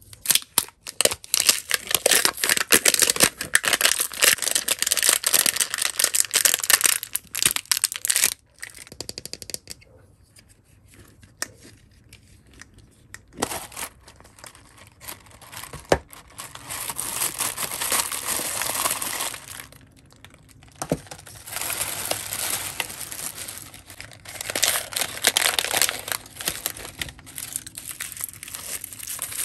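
Crinkly plastic wrapping of an L.O.L. Surprise toy ball being torn open and crumpled by hand, in long stretches of dense crinkling with quieter pauses between them and a sharp click about halfway through.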